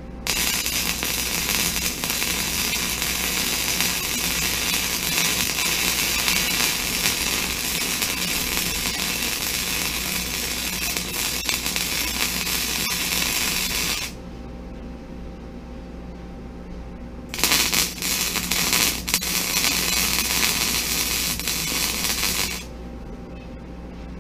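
MIG wire-feed welder arc crackling as beads are run on the steel square-tube frame: one long weld of about fourteen seconds, then after a pause a few stuttering restarts and a second weld of about five seconds. A steady low hum sits underneath between the welds.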